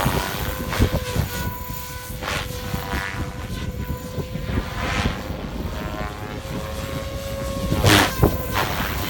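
Goblin 700 electric RC helicopter in flight, its motor and rotor making a steady whine that shifts slightly in pitch. Wind rumbles on the microphone throughout, with a louder burst near the end.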